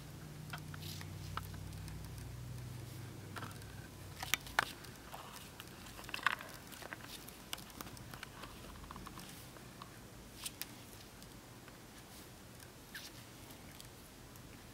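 Faint, scattered light clicks and taps of a beading needle picking seed beads from a paper plate and working them onto a beaded lanyard, with a few louder clicks about four to six seconds in.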